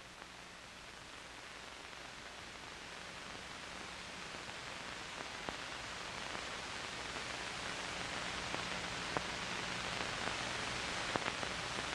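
A steady, even hiss that slowly grows louder, with a few faint clicks and a weak low hum underneath.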